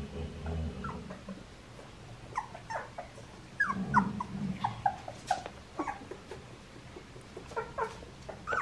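Young red Labrador retriever puppies whimpering and squeaking, a string of short high cries that mostly fall in pitch, coming thickly from about two seconds in. Low rumbling noise sits under them near the start and again about four seconds in.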